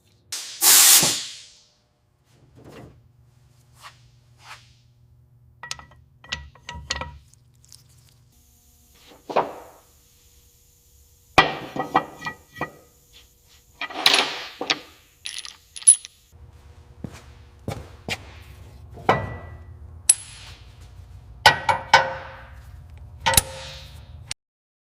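Metal engine parts and hand tools clinking, knocking and ringing as they are handled and set down during engine reassembly: a string of separate strikes, some with a short metallic ring. A brief loud hiss comes about a second in, and a low hum runs underneath in stretches.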